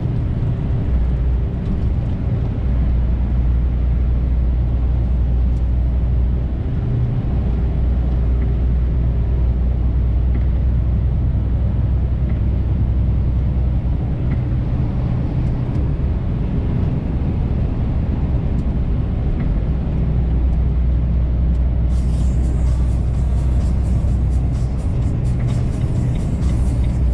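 Truck engine droning steadily in the cab while driving, with road noise; a higher hiss joins about three quarters of the way through.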